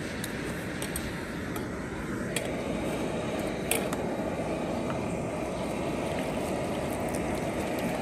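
Portable gas camping stove burning with a steady hiss. About two seconds in a pan is set on the flame and the sound becomes a little louder, with a few light clicks and knocks of cookware.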